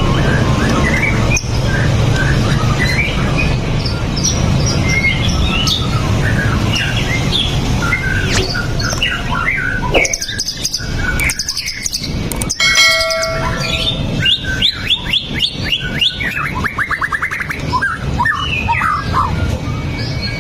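White-rumped shama (murai batu) singing a varied, continuous song of short whistles, chirps and rapid trills over a steady low hum.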